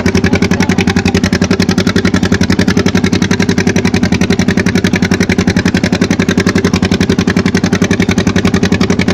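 Boat engine running steadily under way, a rapid, even chugging of about ten beats a second.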